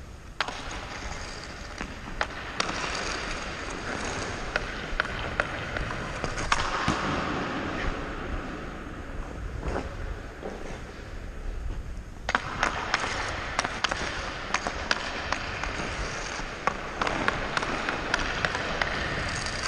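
Ice-hockey skate blades gliding and scraping on rink ice in a steady hiss, rising and falling with the strides, with scattered sharp clicks and knocks.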